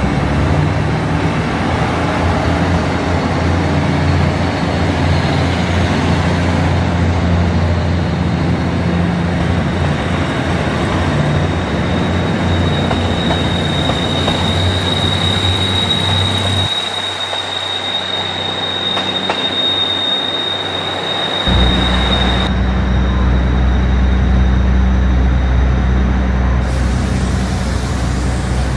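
TRA DR3100 diesel multiple unit pulling out, its diesel engines humming steadily under the cars. A steady high wheel squeal joins about twelve seconds in and stops abruptly about ten seconds later. The low engine hum drops away briefly, then a steady low rumble carries the last few seconds.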